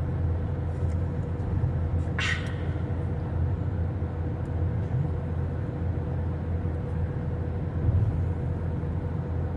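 Car cruising on the interstate, heard from inside the cabin: a steady low road and engine rumble with a faint steady hum above it.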